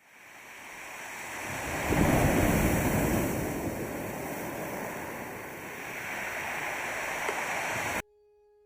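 A rushing noise that swells over the first two seconds, eases to a steadier level, and cuts off abruptly about eight seconds in, leaving a faint steady two-note tone.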